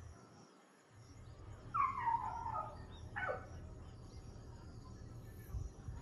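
Two calls from a domestic animal: a longer call falling in pitch, then a short one a second later, over a low steady rumble that starts about a second in.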